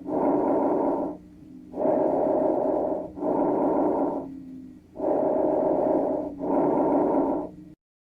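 Normal lung sounds heard through a stethoscope on auscultation: a soft rushing of air in and out, about two full breaths, each inhale followed closely by the exhale. The sound cuts off abruptly near the end.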